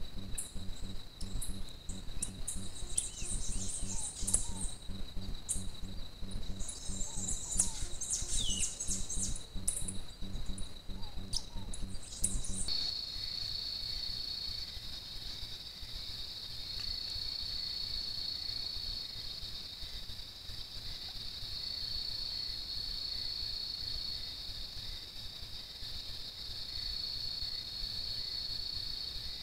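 Night insect chorus: crickets trilling steadily on a high note, with quicker, higher chirps and a few clicks over it. About 13 s in, the sound changes abruptly to a slightly higher trill that swells and fades every second or two.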